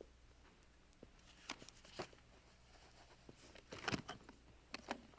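Very quiet room hum with a few soft, scattered clicks and ticks, the loudest about four seconds in.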